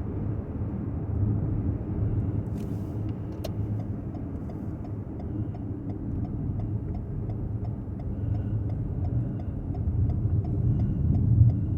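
Car driving slowly, heard from inside the cabin: a steady low engine and road rumble that grows louder near the end. Through the second half a regular ticking of about two to three a second runs over it, the turn signal clicking before the car turns in.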